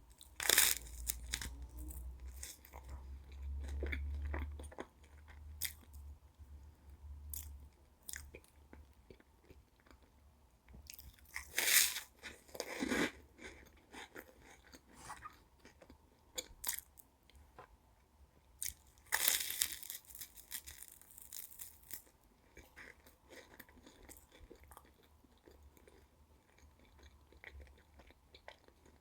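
Close-up eating sounds of Pavlova meringue cake: crisp crunching bites and chewing, with louder crunches about half a second in, around twelve seconds and around twenty seconds, and soft crackles in between.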